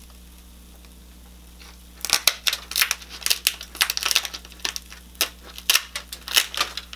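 Kitchen shears cutting through a boiled lobster tail's shell: after a quiet start, about two seconds in, a rapid, irregular run of sharp crunching and cracking snips.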